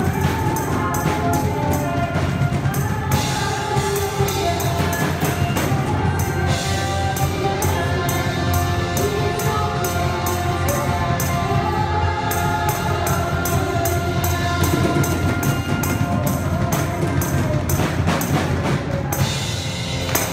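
Live worship band playing a Christmas song: singers leading over drum kit, electric guitars and keyboard, with a steady drum beat.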